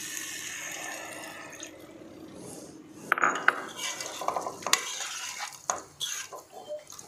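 A little water poured from a cup into a kadai of potatoes in masala, a steady pour that fades out after about two seconds. Then a spatula stirs the potatoes, clinking and knocking against the pan.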